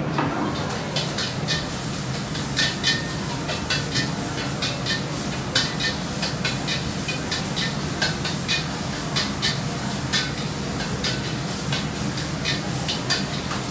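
Food-court kitchen clatter: metal utensils and dishes clinking and knocking several times a second over a steady background of cooking noise and a low hum.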